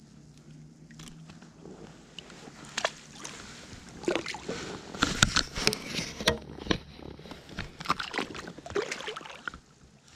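Knocks, clicks and water sloshing as a caught fish is unhooked and handled over the side of a small fishing boat. It is quiet for the first few seconds, then a busy run of short knocks and splashes begins.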